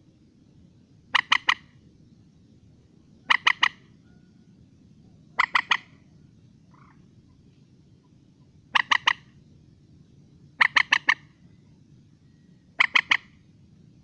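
Mandar, a rail-family marsh bird, calling: six short bursts of three or four quick, clipped notes each, repeated about every two seconds with one longer gap midway.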